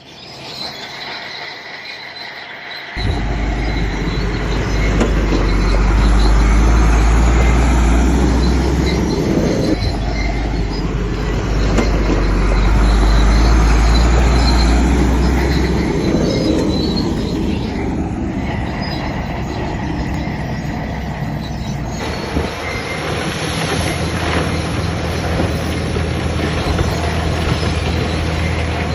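Crawler bulldozer working: its diesel engine runs under load while its steel tracks squeal and clank. The sound comes in suddenly about three seconds in and changes abruptly at about twenty-two seconds.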